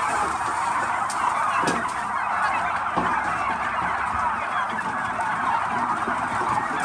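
A large flock of several hundred domestic turkeys calling together, a dense, steady chatter of overlapping calls.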